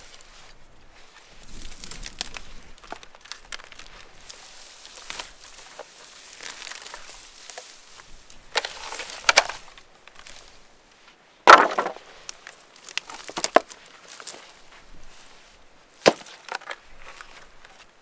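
Wooden boards knocking and clattering as they are handled, with a few sharp wooden knocks over a faint rustling background; the loudest knock comes about two-thirds of the way through.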